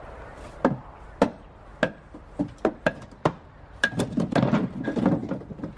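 A hammer knocking a wooden block out from under the timber centering of a brick arch: three sharp blows a little over half a second apart, then lighter knocks. About four seconds in comes a quick run of knocks and clatter as the wooden centering comes down.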